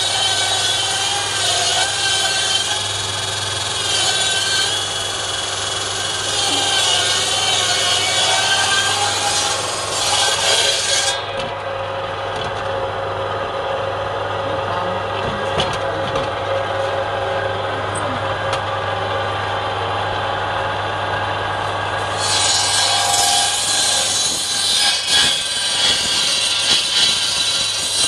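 Bench-mounted power saw running steadily with a low motor hum, cutting lengthwise through a palm log. The high, rasping cutting noise stops about 11 seconds in, leaving the saw running free, and resumes about 22 seconds in as the log goes back through the blade.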